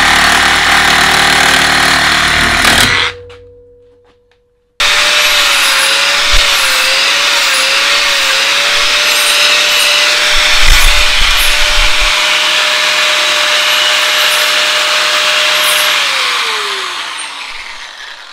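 Corded reciprocating saw cutting through a metal rod clamped in a vise, stopping about three seconds in. Then an angle grinder runs against the rod, its motor whine wavering a few times under load, and winds down after it is switched off near the end.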